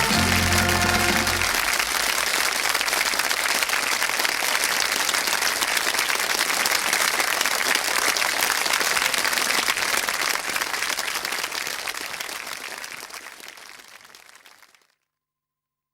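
Studio audience applauding, with a short burst of music ending about a second and a half in; the applause fades away near the end.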